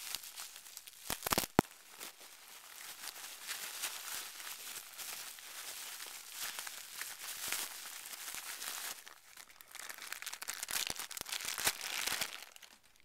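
Clear plastic bag crinkling and rustling as it is handled and pulled open, with a few sharp clicks about a second and a half in.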